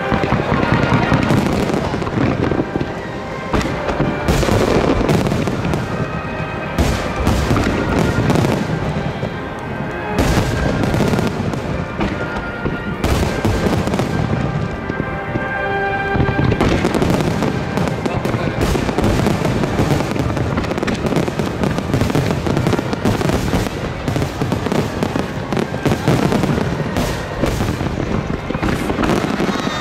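Large aerial firework shells bursting in a dense, continuous barrage, many sharp bangs overlapping at once, with music playing underneath.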